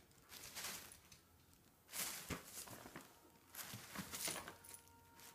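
Plastic shopping bag of yarn rustling and crinkling in a few short bursts as a cat and a dog scuffle on and against it.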